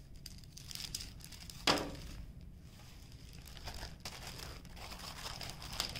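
Thin plastic crinkling and rustling as small clear packets of diamond painting drills are picked up and handled, with one sharper crackle a little under two seconds in.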